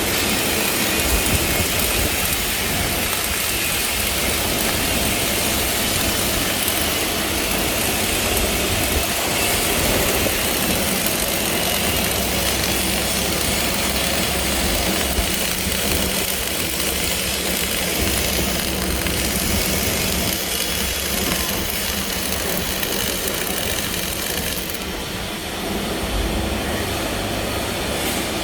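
Flux-cored arc welding arc, crackling and hissing steadily as a nozzle is welded to its pad. The high part of the crackle thins for a few seconds near the end.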